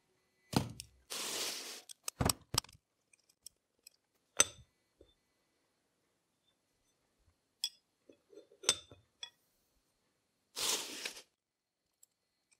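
Steel parts of a milling machine vise being handled during disassembly: scattered clinks and knocks of metal parts, a hex key and jaw plates being picked up and set down. Two longer scraping sounds, about a second in and again near the end.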